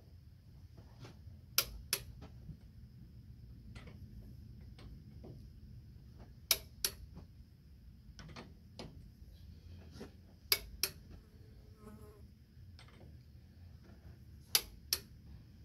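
Click-type torque wrench on a mining roadtrain trailer's wheel nuts, giving sharp clicks in pairs about a third of a second apart, four times a few seconds apart: each click marks a nut reaching its set torque. A steady insect buzz runs underneath.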